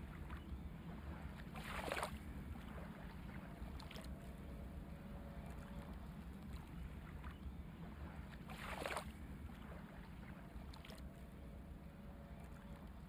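Faint room tone of a small shop: a low steady hum, with two brief rustles about two seconds in and again near nine seconds.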